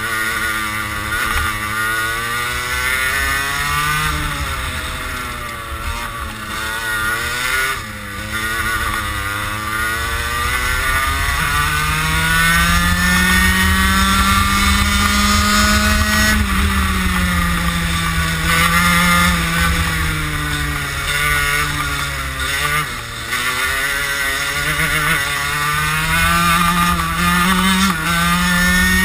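Racing kart engine heard from onboard, revving up on the straights and dropping back into the corners, with one long climb in pitch about halfway through before it falls away again.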